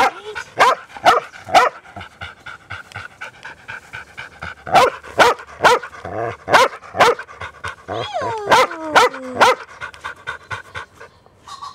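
A dog barking in sharp, excited runs of about two barks a second. A yelp falling in pitch comes among the barks a little after the middle.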